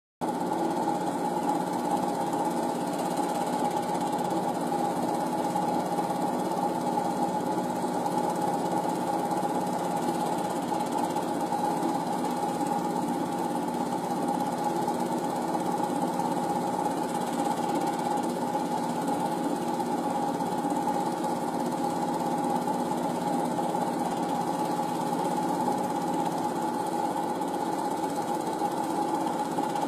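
Film projector running: a steady mechanical whir with a fast, even rattle.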